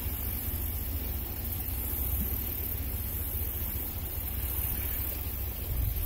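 Wind rumbling on the microphone outdoors: a steady low rumble with an even hiss over it and no distinct events.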